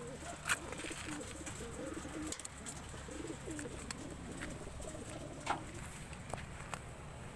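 Racing pigeons cooing continuously, a wavering low warble, with a few short sharp clicks, the loudest about half a second in and about five and a half seconds in.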